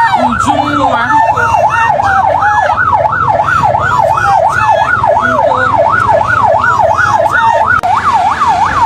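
Vehicle siren in fast yelp mode, its pitch sweeping up and down about three to four times a second, slowing a little near the end, over a steady low rumble.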